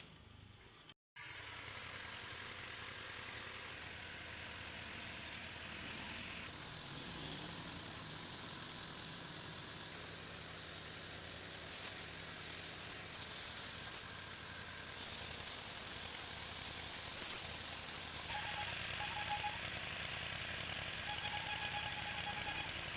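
Pressure washer running steadily with the hiss of its water jet, starting abruptly about a second in and shifting in tone a few times.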